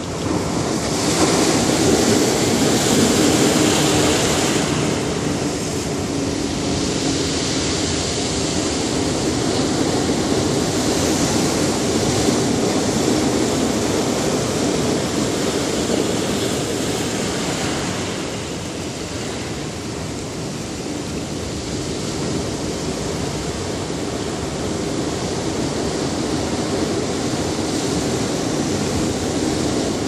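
Ocean surf breaking and washing over dark rocks: a continuous rushing wash that swells louder a second or two in, eases back, and dips into a quieter spell about two-thirds of the way through.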